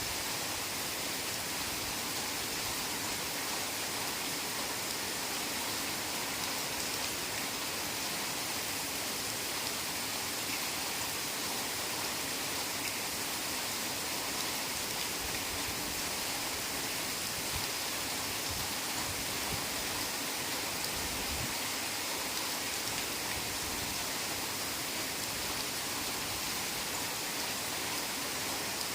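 Heavy rain falling steadily in a forest: an even, unbroken hiss of rain.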